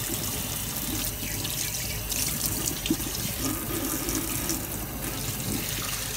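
Kitchen tap running steadily, its stream splashing through a stainless-steel mesh sieve and onto a herring fillet being rinsed in it, draining into a stainless-steel sink.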